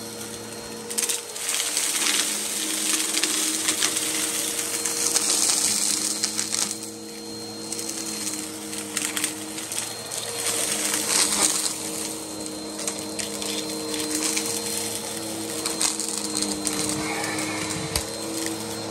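Vacuum cleaner running steadily, its motor hum wavering slightly in pitch, with crunching and crackling as it sucks up dirt.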